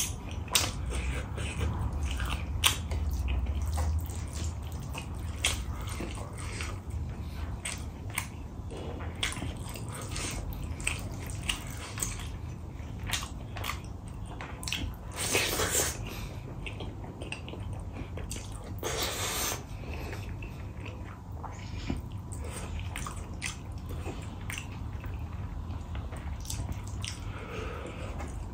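Close-up eating sounds: wet chewing and lip-smacking clicks of someone eating rice and chicken curry by hand, with two longer wet sounds about halfway through.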